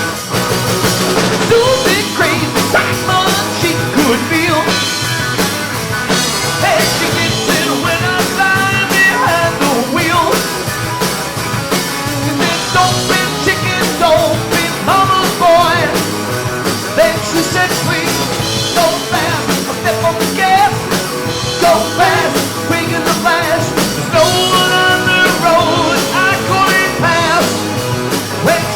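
A live rock-and-roll band playing a song in rehearsal, with a singer's voice over the band.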